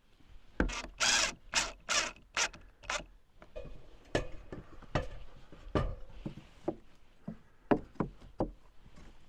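Wood rubbing and knocking as pieces of wood trim are worked and fitted: a quick run of about six short scraping strokes, then scattered knocks.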